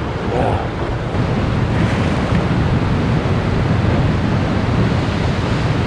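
Sea waves washing and breaking against shoreline rocks, a steady rushing with wind buffeting the microphone.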